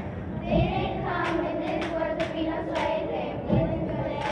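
A group of children singing together, with hand claps keeping a beat.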